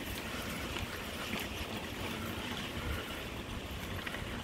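Steady rushing noise of a bicycle ride, with wind buffeting the microphone in an uneven low rumble.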